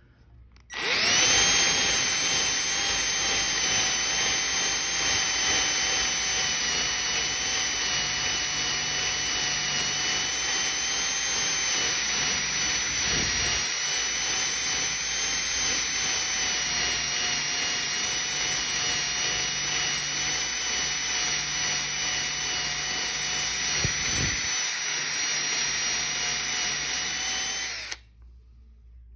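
Power sander running steadily with a high whine and hiss while sanding drip marks out of a clear coat. It starts just under a second in and cuts off about a second before the end.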